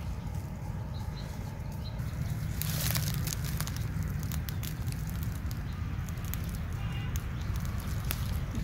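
Rustling and scattered sharp clicks of bamboo, sticks and dry leaves being handled as a spitted chicken is set on forked stick supports over charcoal embers, with a burst of rustling about three seconds in. A steady low rumble runs underneath.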